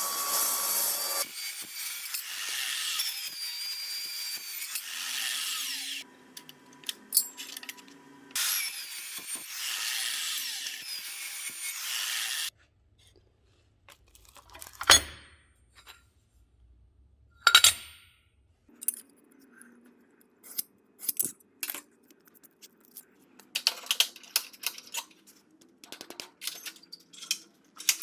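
A power tool working steel for about twelve seconds, stopping abruptly near six seconds and starting again soon after. Then a low hum with two sharp metallic knocks and many scattered clicks and clinks of steel parts being handled.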